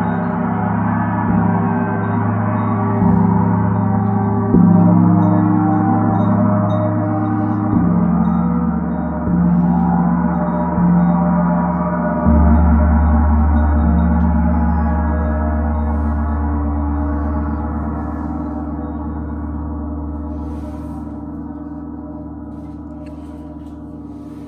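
Eight Corners of Heaven mirror gong struck repeatedly with a felt mallet, a stroke every one to two seconds for about twelve seconds, building a layered wash of ringing tones. A stroke about twelve seconds in adds a strong deep hum, and the gong then rings on, slowly fading.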